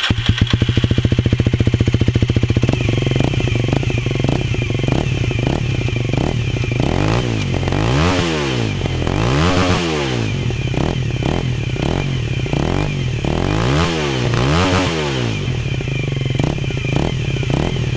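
Aprilia RS 125 engine running at a steady idle, then revved up and down again and again from about six seconds in.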